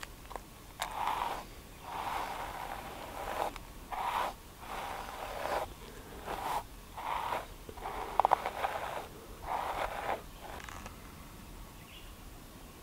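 A hair brush drawn through a thick beard in repeated scratchy strokes, about ten of them with short pauses between, stopping near the end.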